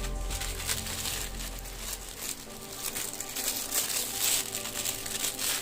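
Parcel packaging crinkling as it is handled and unwrapped, in irregular rustles.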